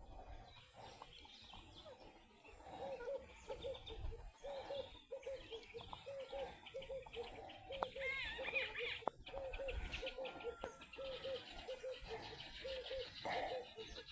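German Shepherd puppies squeaking and whimpering at feeding time, with high chirpy squeals over a run of short, repeated low calls about two a second.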